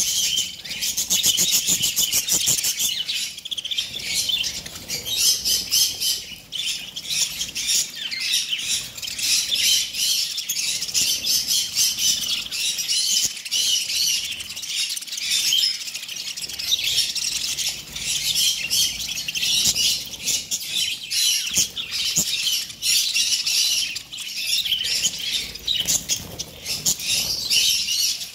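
A large flock of budgerigars chirping and chattering continuously, many birds at once. A fast run of clicks sounds through the first few seconds.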